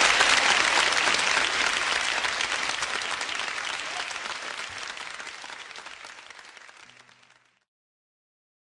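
Audience applause at the end of a live song recording, fading out steadily to silence about seven seconds in.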